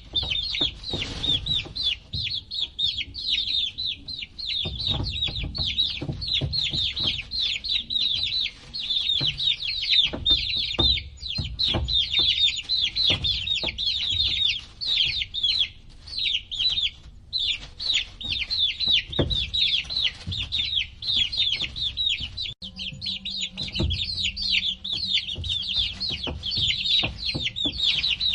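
A brood of baby chicks peeping nonstop, many short falling chirps overlapping, with scattered soft thumps underneath.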